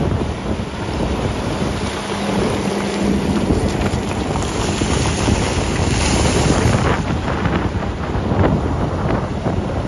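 Wind rumbling on the microphone over a Hitachi excavator digging in a rock quarry: a steady engine tone in the first half and scattered knocks of rock.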